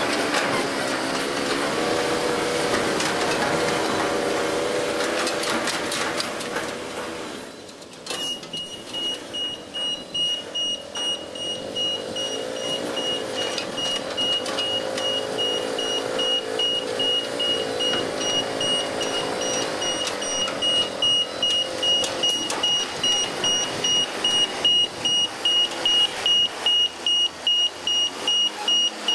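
Semi-truck's diesel engine running and changing pitch as it backs up, with a reversing alarm starting about eight seconds in and beeping steadily over the engine.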